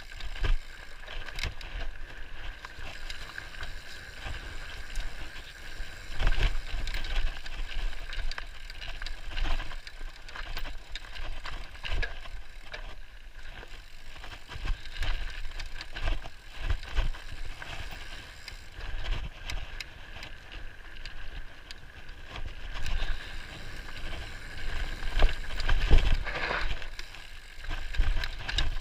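Mountain bike rolling fast down a dirt singletrack, heard from on the bike: a steady rush of tyre and wind noise with frequent short rattles and clicks from the bike over bumps and roots, and heavier thuds and swells every few seconds.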